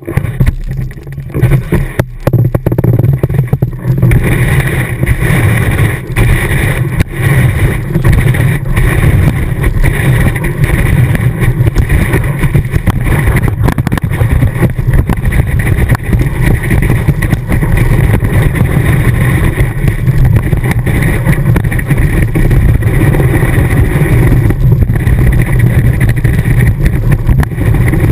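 Ski running fast over snow, picked up by a camera mounted on the ski tip: a loud, steady, low rushing noise of the ski on the snow and wind over the housing.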